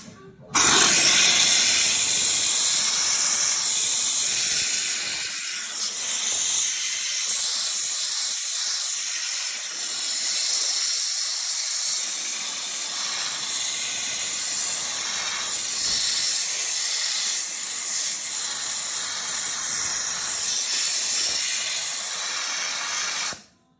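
A steady, high hiss that starts abruptly about half a second in and cuts off suddenly near the end.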